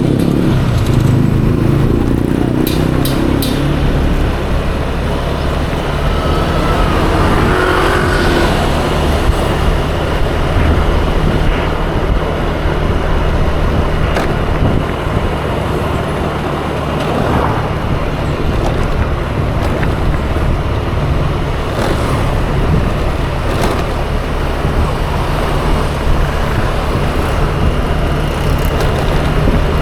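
Yamaha Aerox 155 scooter's single-cylinder engine running steadily on the move, with road and traffic noise around it. A brief rising engine note comes about seven to eight seconds in.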